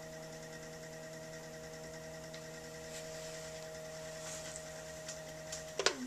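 Electric potter's wheel motor humming steadily as the wheel spins. Near the end a few sharp clicks come and the hum falls quickly in pitch and dies away as the wheel is switched off.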